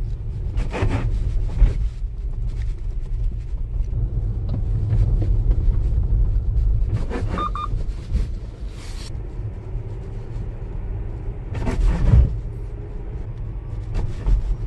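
Tesla suspension knocking and clunking as the car rolls over speed bumps, over a steady low road rumble in the cabin. On the second bump there is a creaking clunk, the persistent suspension rattle that a replaced suspension part and repeated service-center repairs have not cured.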